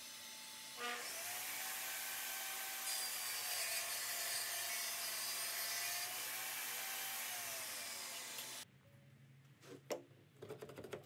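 DeWalt 10-inch table saw ripping a board: the running saw takes the cut about a second in, giving a loud cutting hiss over the blade's whine, which sags in pitch under load as the wood feeds through. The sound cuts off suddenly about two-thirds of the way through, and a few knocks and rubbing sounds follow as the dust-collection hose is handled.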